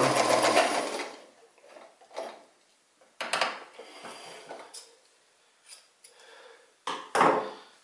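Sears Kenmore 158 series sewing machine running and stopping about a second in, after stitching through four layers of denim. Then a few light clicks and rustles as the denim is pulled from under the presser foot and the thread drawn off.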